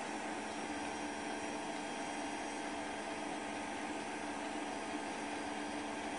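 Steady hiss with a faint, even hum and nothing else: the background noise of a silent 8 mm home-movie transfer.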